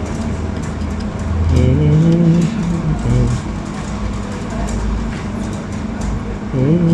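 Hot-air rework station blowing a steady stream of air with a constant fan hum while solder is being reflowed. A voice sounds briefly twice over it, about a second and a half in and again near the end.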